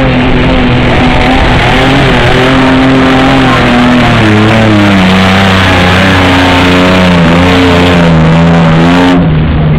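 Mud truck's engine revving hard under heavy load as the truck ploughs through deep mud. It is very loud, with its pitch wavering as the wheels spin and dropping about four seconds in as the engine bogs.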